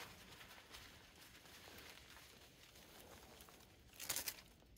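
Mostly quiet, faint rustling as a brown paper wrap around a branch is handled. About four seconds in comes a short, louder burst of crinkling as the red plastic tape is picked up and handled.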